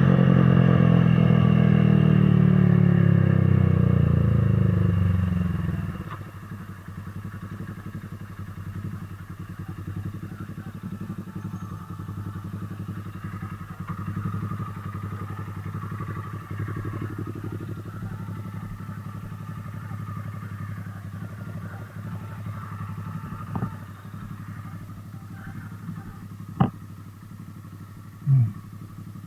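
Motorcycle engine running loud under way, then easing off about six seconds in to a quieter, low, steady running. A few sharp knocks near the end.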